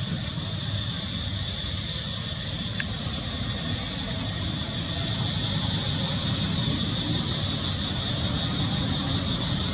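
Steady outdoor ambience: a constant high-pitched hiss over an even low rumble, with one faint click about three seconds in.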